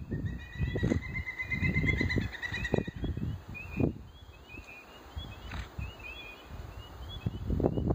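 A chorus of short, high, rising chirps repeating several times a second, with a trill of about two and a half seconds near the start. Under it, an uneven low rumble on the camera phone's microphone comes and goes, quietest in the middle.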